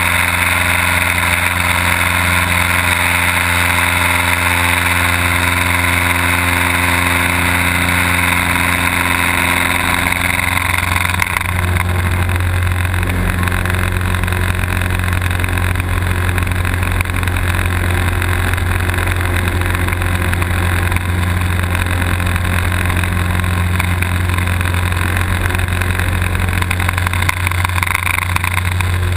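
Light aircraft's piston engine and propeller running steadily, heard from inside the cockpit. About eleven seconds in the engine note changes and the hiss above it drops away.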